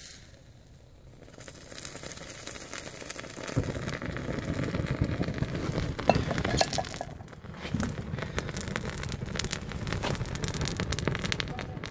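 Wax burning and boiling out of lost-wax moulds just filled with molten aluminium: a sizzling, crackling hiss full of small pops. It builds from about a second in and grows louder, with a low rumble, from about three and a half seconds in.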